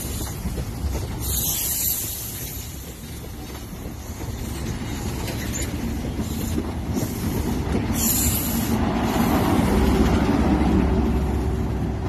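Yellow Network Rail train's coaches rolling past a platform: a steady rumble and clatter of wheels on the track, with two short hissing bursts and growing louder near the end.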